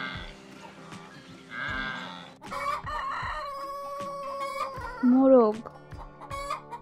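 Rooster crowing once: a long cock-a-doodle-doo that starts about two and a half seconds in, holds its pitch, then falls away at the end. Before it come two short, wavering bleating calls from another animal.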